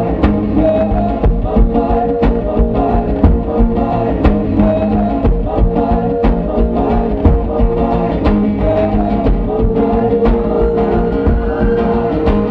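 Amplified acoustic guitar played live, struck hard in a steady driving rhythm of percussive strokes, over long held notes in an instrumental stretch of a song.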